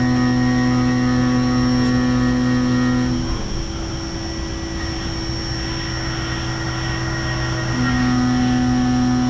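Haas VF-4 CNC milling machine cutting a metal plate dry with an end mill, without coolant: a loud, steady pitched hum with overtones. About three seconds in the hum drops out into a quieter, rougher cutting noise, and it comes back steady near the end.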